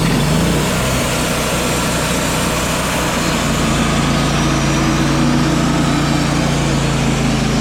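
Engine of a Wood-Mizer LT35 portable band sawmill running steadily at a constant speed, with a dense hiss over it.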